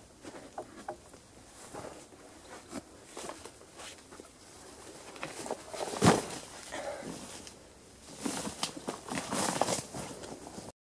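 Footsteps and rustling of a person climbing down a tree trunk and walking through dry undergrowth, with scattered snaps and scrapes of twigs; the loudest sound is a single thump about six seconds in, and denser rustling of steps follows near the end.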